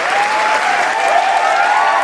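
Large crowd applauding and cheering: dense, steady clapping with many cheering voices rising and falling over it.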